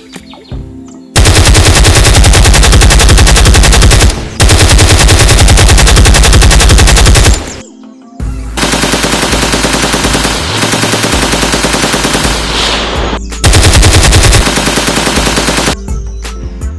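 Rapid automatic gunfire in several long bursts of a few seconds each, with short breaks between them.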